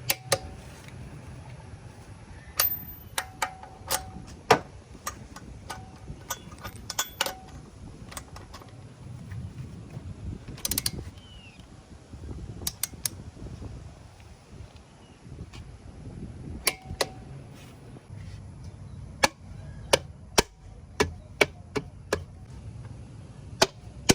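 Hand tools working on the car's front wheel and brake: irregular sharp metallic clicks and clinks, some ringing briefly, in scattered clusters.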